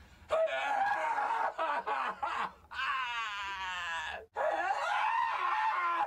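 A man crying and wailing loudly in several long, drawn-out sobbing cries whose pitch slides up and down, with short breaks for breath.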